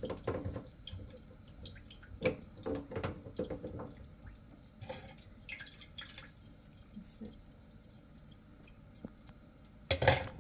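Water dripping and trickling down through an opened under-sink drain pipe, with scattered small knocks and splashes and one louder knock near the end.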